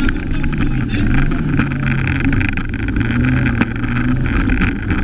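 Fiat Cinquecento rally car's engine heard from inside the car at racing speed, its revs rising and falling as it is driven hard through the stage.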